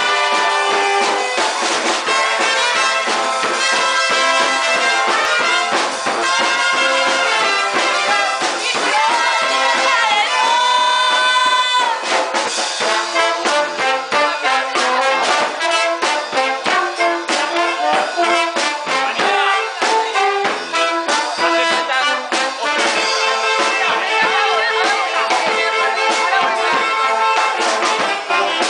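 A small brass-and-drum band (a Basque txaranga) playing a lively tune: trumpets, saxophones, a baritone horn and a tuba over a bass drum and snare drum keeping the beat. About ten seconds in the band holds a long chord, then the beat resumes.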